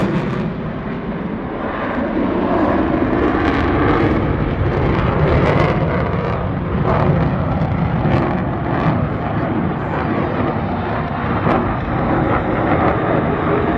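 Jet noise from an F-22 Raptor's twin Pratt & Whitney F119 afterburning turbofans as the fighter repositions in flight during its demo, a loud, steady rumble with a small dip in level just after the start.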